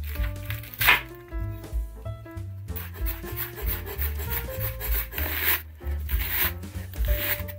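Large knife slicing through a whole raw red cabbage on a bamboo cutting board, the blade knocking the board sharply about a second in as the head splits, then cutting on into one half with repeated rasping strokes. Light background music plays underneath.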